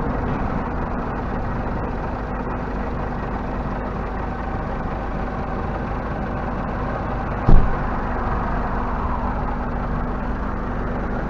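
Truck diesel engine idling steadily, with one sharp thump about seven and a half seconds in.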